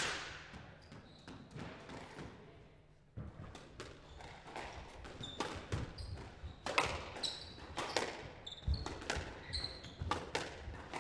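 Squash rally: the ball cracks off rackets and the court walls in quick, irregular succession, starting about three seconds in, with short high squeaks of shoes on the court floor.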